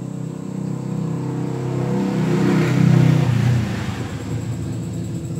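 Low engine hum of a passing motor vehicle, swelling to its loudest about three seconds in and then easing off.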